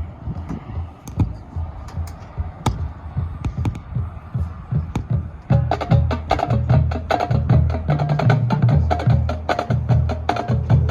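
Marching band percussion playing: scattered wood-block and drum hits at first, then about halfway in a dense rhythmic passage comes in with heavy low drums.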